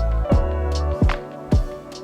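Background music: held notes over a beat of deep, falling bass-drum thumps.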